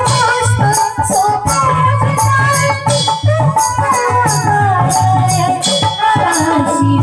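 Loud devotional dance music for Shiva. A steady low drum beat runs under sharp shaker- or rattle-like percussion strokes, about two to three a second, with a wavering melodic line on top.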